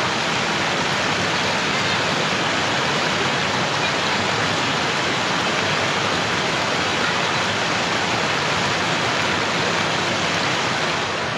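Muddy floodwater rushing in a fast, churning torrent through a breach in the Kushiyara river bank: a steady, unbroken loud rush of turbulent water.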